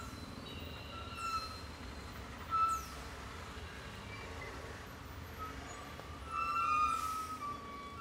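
Road traffic on a wet street: a steady low rumble with a few brief tyre hisses sweeping past. Short high-pitched tones come and go over it, the loudest cluster about three-quarters of the way in.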